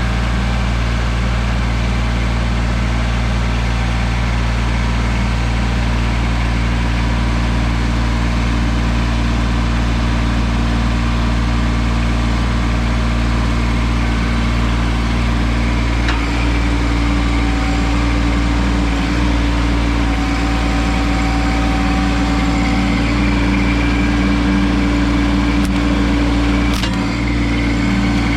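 Tractor engine running steadily at idle, a loud even hum, with a couple of faint clicks in the second half.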